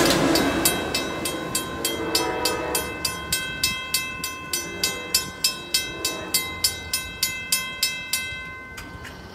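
Railroad crossing bell ringing steadily, about two and a half strikes a second, while the rumble of a passing passenger train fades in the first second or so. The bell stops shortly before the end, as the crossing clears.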